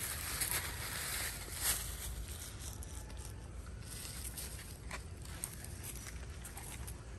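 Dry fallen leaves rustling and crackling as an otter moves over them, then lighter scuffling on bare dirt, with a few sharp clicks.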